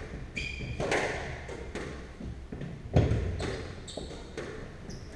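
Squash rally: sneakers squeaking on the wooden court floor, and a hard hit of the ball about three seconds in that rings on in the enclosed court.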